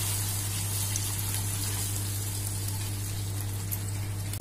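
Liquid poured from a bowl into a hot pan of frying goat meat, with a steady gushing and sizzling as it spreads through the pan.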